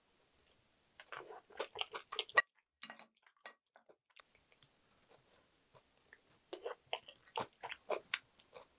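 Close-miked chewing of chewy jjolmyeon noodles: quick wet mouth clicks and smacks in two bouts, the first about a second in and the second starting past the middle.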